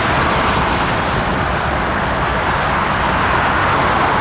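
Steady jet roar of a four-engined Airbus A340-300 on approach, growing slightly louder as it comes nearer.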